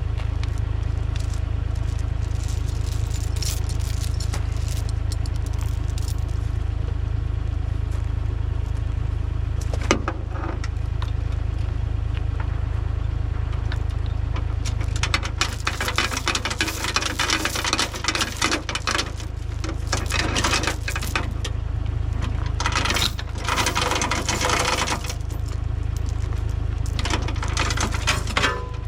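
Machine engine running steadily with a low hum, under loose metal rattling and scraping, as of a chain being handled. The rattling comes in dense stretches through the second half.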